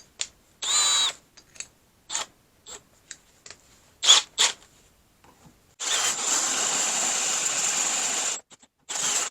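Power drill with a half-inch bit at the clutch arm: a few short trigger blips with a faint whine, then one steady run of about two and a half seconds past the middle, and another brief blip near the end, among small clicks and knocks of handling.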